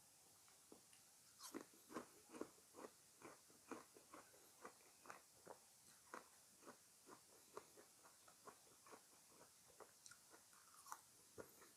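Close-miked chewing of fresh fruit: a steady run of short chews, about two a second, a little louder around two seconds in.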